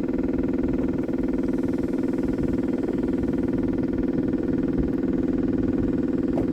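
Electric fuel pump of a Cummins Onan 7.5 kW Quiet Diesel generator running with a steady, even hum while priming the fuel system before the first start.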